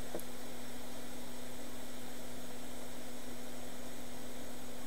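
Steady electrical mains hum with a constant hiss underneath, unchanging throughout.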